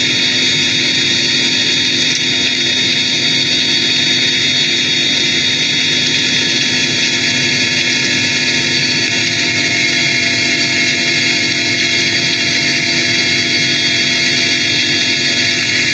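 Steady, loud machine noise: an even hiss with several held whining tones that does not change.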